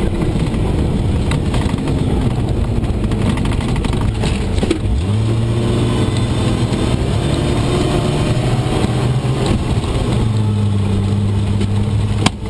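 Cab interior of a Steyr-Puch Pinzgauer on a rough dirt rally track: the engine runs loud under load over heavy road and body noise. The engine note shifts about five seconds in and again near ten seconds, and a single sharp knock comes near the end.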